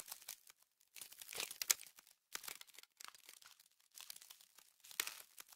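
Faint, irregular crackling: scattered clusters of small clicks and crinkles, with a slightly sharper click about five seconds in.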